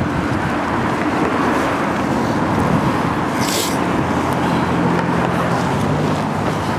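Steady road traffic noise from passing cars, with a short hiss about halfway through and a low engine hum coming in about four seconds in.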